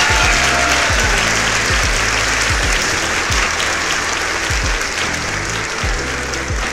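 Applause laid over background music with low bass notes and a regular drum beat.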